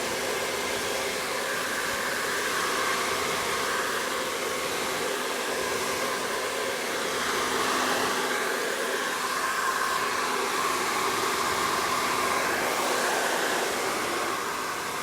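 Hand-held hair dryer blowing steadily, its airy rush wavering slightly in tone now and then.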